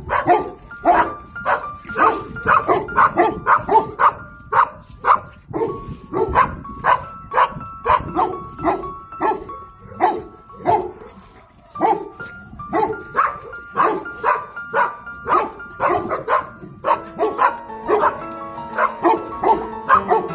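A dog barking over and over, about two barks a second, with a short pause midway, over background music.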